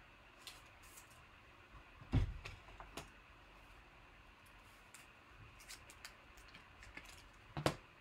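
Trading cards and plastic card holders being handled on a tabletop: scattered light clicks and taps, with two louder thumps, one about two seconds in and one near the end, as things are set down.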